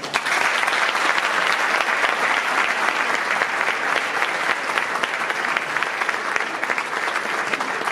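Audience applauding: many hands clapping together, dense and steady.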